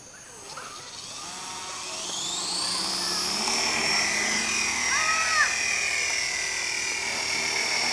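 Electric RC helicopter's main and tail rotor motors (3900 kV main motor, 1700 kV tail motor) spooling up from rest: a whine that rises in pitch and grows louder over the first three seconds as the rotor comes up to speed, then holds as a steady high whine as the helicopter lifts off and flies.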